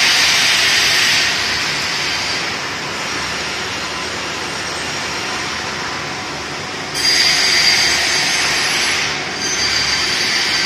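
Sawmill band saws running and cutting logs: a steady, noisy whine that eases off after about a second and swells again suddenly about seven seconds in.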